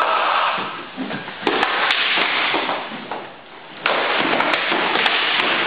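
Eskrima sticks clacking against each other and against the fighters' padded armour in fast exchanges of strikes: a few sharp cracks about one and a half to two seconds in, then a cluster of hits in the last two seconds after a short lull.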